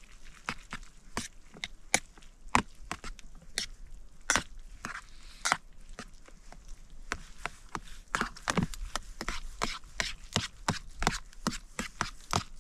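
Metal chopsticks clinking and scraping against a metal mess tin as noodles are stirred and mixed, in irregular sharp clicks that come faster in the second half.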